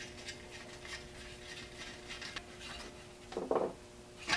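Faint clicks and rubbing from hands working a thin metal air line into the compression fittings of an inline oiler, over a faint steady hum. A short louder handling sound comes about three and a half seconds in, and a click near the end.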